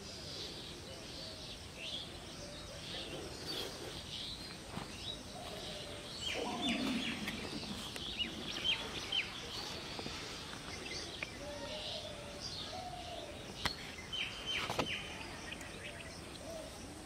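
Birds chirping and calling: many short high chirps, with some lower short calls in between. Two sharp clicks come near the end.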